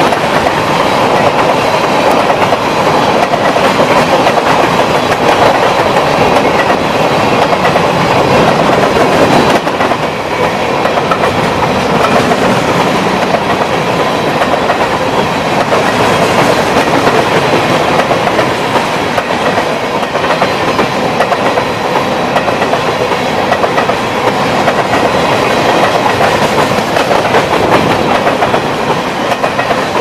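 Freight train of covered grain hopper cars rolling past close by, steel wheels clacking over the rail joints over a loud, steady rumble.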